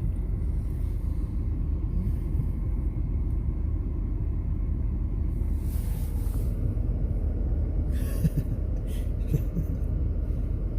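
Steady low rumble of a car idling with its heater running, heard from inside the cabin. A few light knocks or scrapes come in the second half.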